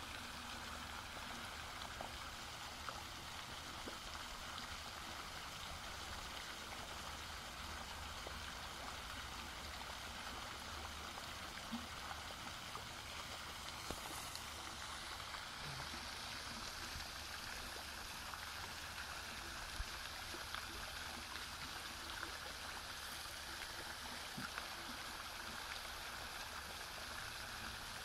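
Running water flowing steadily, a continuous even rush, with a few faint ticks here and there.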